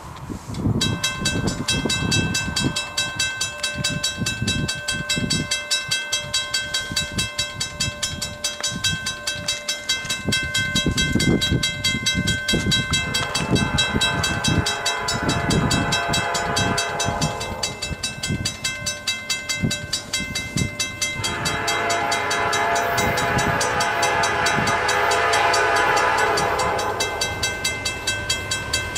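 Freight train with two diesel locomotives approaching, its air horn sounding two long blasts, one about halfway through and one near the end. A bell rings rapidly and steadily throughout, with the rumble of the train underneath.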